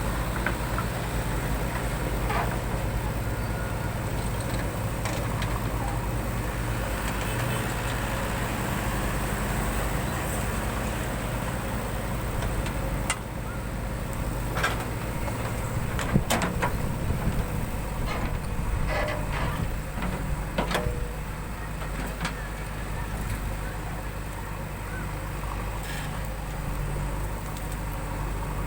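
JCB 3DX backhoe loader's diesel engine running steadily while it loads sand. A scattering of sharp knocks and clanks comes in the middle stretch.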